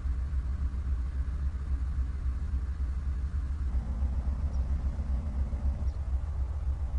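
Diesel locomotive engine running with a steady, deep pulsing rumble. A little past halfway, a rougher mid-range layer joins it for about two seconds.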